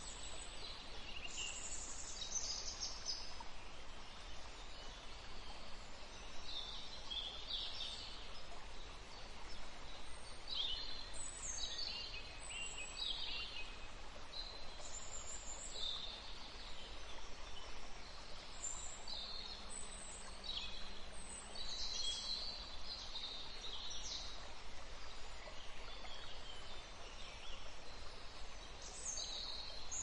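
Small birds calling in many short, high chirps and trills over a steady, even hiss of flowing water from a small river.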